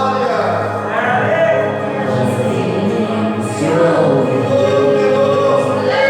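Congregational worship music: a group of voices singing together over sustained instrumental accompaniment.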